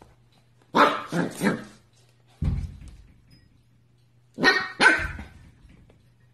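A puppy barking in play: three quick barks, a low thump, then two more barks.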